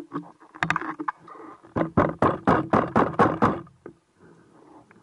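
Underwater bubbling and gurgling picked up by the camera. It grows into a quick run of strong gurgles, about four a second, for a second and a half, then dies away.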